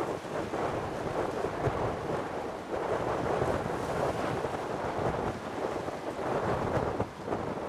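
Gusty wind buffeting the microphone: a rough, rumbling noise that surges and eases every second or so, with no steady tone in it.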